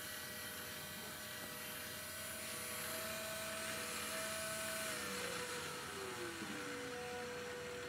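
Red Sea ReefBot's motor-driven syringe drawing liquid up, a steady mechanical whine made of several tones. The tones shift about five seconds in, followed by a short falling tone.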